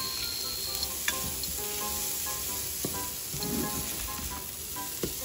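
Diced bacon sizzling as it fries in a stainless steel frying pan, stirred with a plastic spatula that knocks against the pan a few times.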